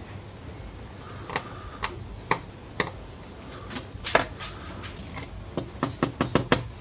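Small parts being handled during a smartphone teardown: sharp, separate clicks and taps of plastic and metal, with a quick run of clicks near the end.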